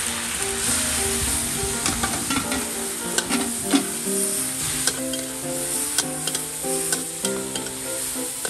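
Chinese kale and pork sizzling in a hot steel wok. A metal spatula scrapes and clinks against the pan as it is stir-fried, with the sharpest knocks in the middle of the stretch.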